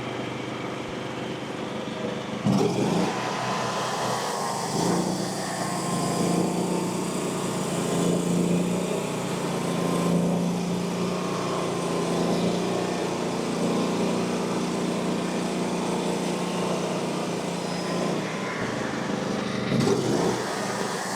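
Frontier OS35 bandsaw mill running steadily, with its blade cutting a 3/4-inch board along the log from about two and a half seconds in until near the end.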